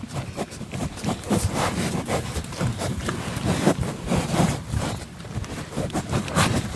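Close-up snuffling and breathing from a bulldog puppy and cattle sniffing at each other's noses, with irregular rustling and wind on the microphone.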